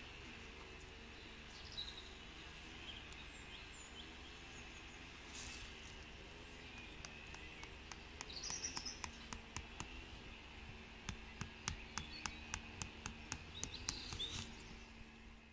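A tent peg being tapped into the ground in a run of short, light knocks, about two a second, starting about halfway through. Birds chirp now and then over a low outdoor hum.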